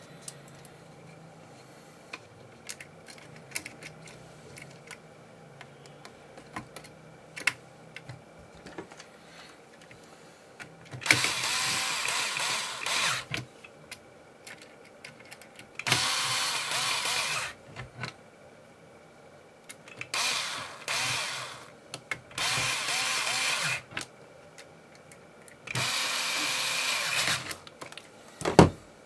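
Small electric screwdriver running in five short bursts of about one and a half to two seconds each, driving in the screws of a laptop's CPU heatsink and fan assembly. Light clicks of handling before the first burst, and one sharp knock near the end.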